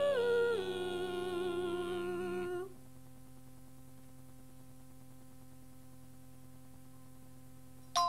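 Vocal group holding the last sung note of a novelty answering-machine greeting jingle, stepping down in pitch just after the start and ending with its backing about two and a half seconds in. A steady low hum from the old cassette playback follows.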